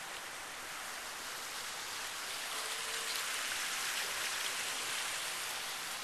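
Water from a boulder waterfall splashing over rocks: a steady hiss that swells a little in the middle.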